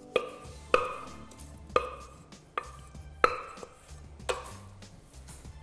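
Wooden spoon knocking and scraping against a stainless-steel saucepan while apple compote is spooned out of it, about six knocks, each with a brief metallic ring.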